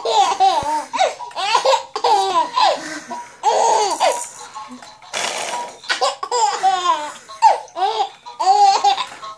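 Baby laughing heartily in repeated bursts of high-pitched, swooping laughter, with short breathy gasps in between.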